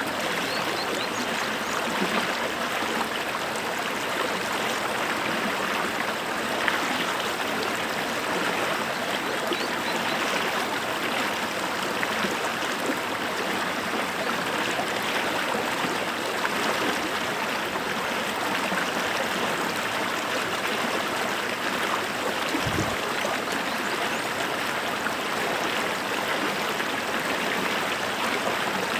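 Running water of a stream or brook: a steady, even rush and trickle.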